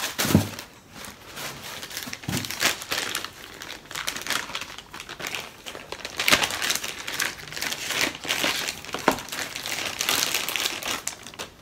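Clear plastic packaging bags crinkling and rustling irregularly as they are handled and pulled open by hand. There are a couple of dull knocks in the first few seconds.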